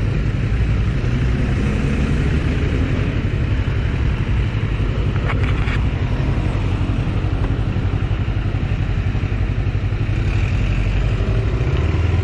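Bristol Veloce 500's 471cc parallel-twin engine running at low road speed, heard from the rider's seat as a steady drone with no hard revving.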